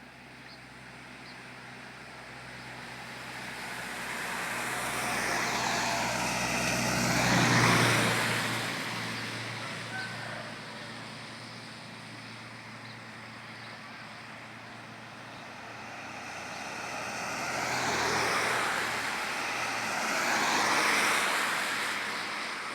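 Vehicles passing on a wet road, tyres hissing as they come and go. The first, with engine hum, is loudest about seven and a half seconds in; two more pass near the end.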